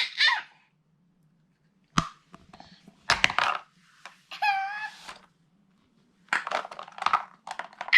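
Plastic puzzle pieces knocking and clattering as they are handled and put into the toy board: a sharp knock, then a quick cluster of clatters, with more scattered clicks later. A short high wavering vocal sound comes in the middle.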